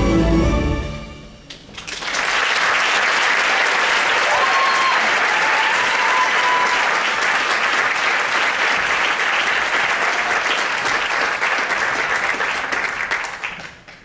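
The dance number's music ends about a second in, then a theatre audience applauds steadily for about eleven seconds, fading out near the end.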